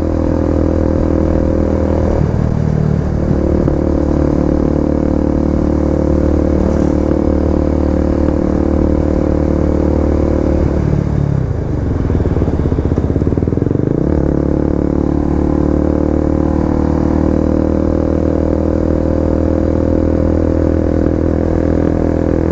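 KTM RC 250's single-cylinder four-stroke engine running steadily under way. A little past the middle, the engine note drops and then climbs back to its steady pitch over about three seconds.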